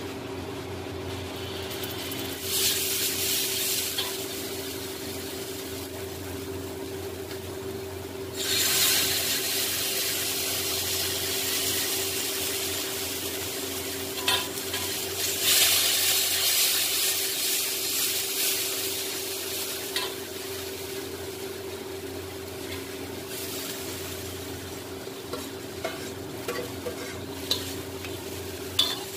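Masala sizzling in a steel kadhai while a metal slotted spoon stirs and scrapes it. The sizzle surges loudly several times, and near the end a few sharp taps of the spoon on the pan sound over a steady low hum.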